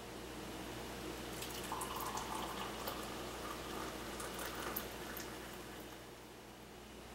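Coffee poured from a stainless steel percolator into a ceramic mug: a stream of liquid splashing into the cup with small clicks and spatters. It starts about a second and a half in and fades near the end.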